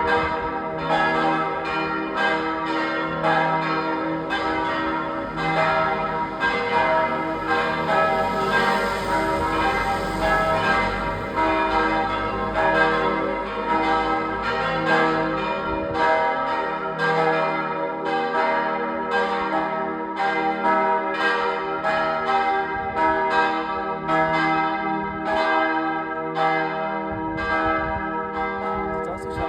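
Several church bells pealing together, their strokes coming in quick succession and overlapping into a continuous ringing.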